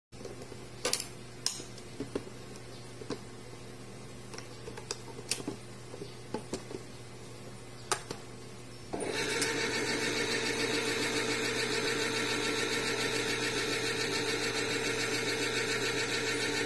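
Kenwood electric can opener: a few clicks and knocks as the can is set under the cutter lever, then about nine seconds in the motor starts with a steady whir as it turns the can and cuts round the lid.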